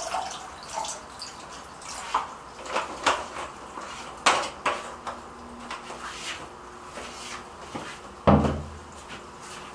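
Water splashing and dripping in a plastic bucket where a running canister filter's return hose churns the water, as bleach is poured in from a jug at the start. Small handling clicks and knocks are scattered through it, with one louder dull thump about 8 seconds in.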